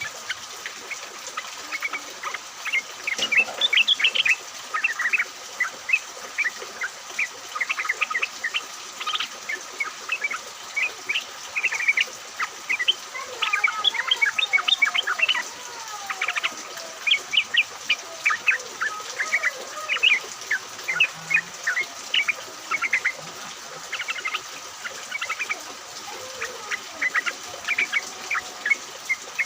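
A flock of yellow-vented bulbuls (trucukan) chattering and singing, with many quick bubbly chirps tumbling over one another throughout and a few lower gliding notes about halfway through. A steady high hiss lies behind them.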